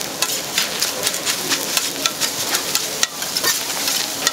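Metal spatulas chopping and scraping egg and rice on a steel teppanyaki griddle: rapid, uneven clacks of metal on metal over a steady sizzle.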